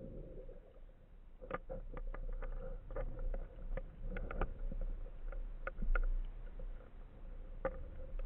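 Underwater sound recorded through the camera's housing while swimming over a rocky reef: a constant low rumble of moving water with many irregular sharp clicks and crackles, over a faint steady hum.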